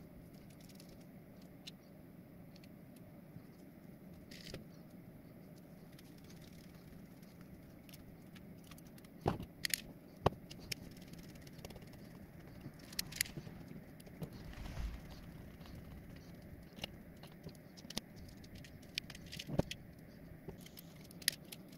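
Small hardware being handled by hand: scattered light clicks and taps of screws and 3D-printed plastic parts against a hand screwdriver and the work mat, with a few sharper clicks from about nine seconds in, over a faint steady hum.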